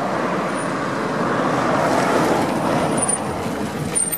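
A car approaching along the road and pulling up, a steady engine and tyre noise that swells about halfway through.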